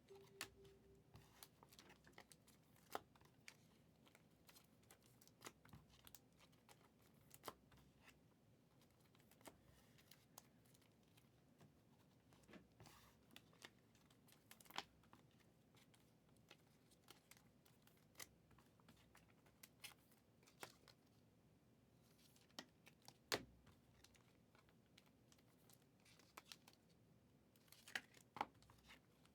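Faint, scattered crinkles and clicks of foil trading-card packs being torn open and cards being handled, with a few sharper clicks among them.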